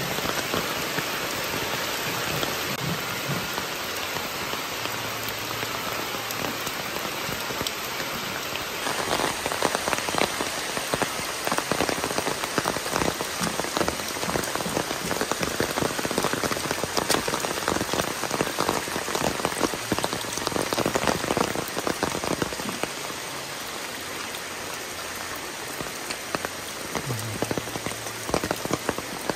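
Heavy tropical rain falling on foliage, thatched roofs and stone paths: a steady hiss full of fine drop patter. About nine seconds in it grows louder and more crackly with close drops, and it settles back a little after about twenty-two seconds.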